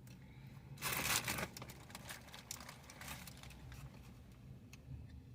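Paper food wrapper crinkling, loudest in a short burst about a second in, then a few lighter rustles and crackles.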